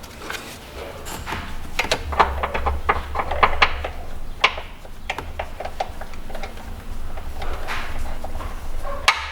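Metal clicks and knocks of a wrench being fitted onto the nut of an alternator's overrunning-clutch pulley, a quick cluster in the first few seconds and a few more later, over a low steady hum.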